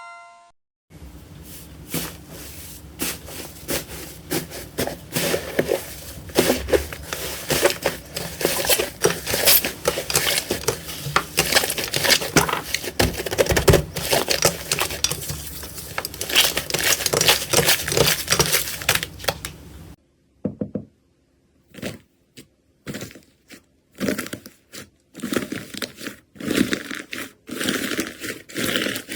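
Slime being squeezed, pressed and stretched by hand, making dense crackling and popping. About twenty seconds in it cuts off and gives way to sparser, separate crackles.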